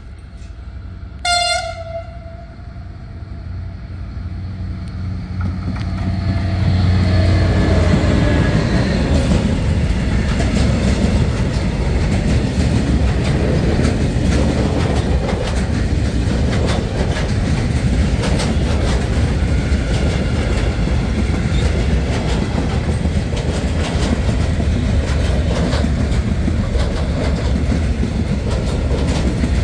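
Freight train's diesel locomotive gives one short horn blast about a second in, then its engine grows louder as it approaches and passes about seven seconds in. A long string of silo tank wagons follows, wheels rolling steadily and clattering over the rail joints.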